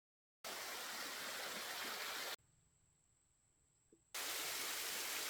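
Steady hiss of rushing noise that starts and stops abruptly: two stretches of about two seconds each, separated by a near-silent gap with a faint high steady tone.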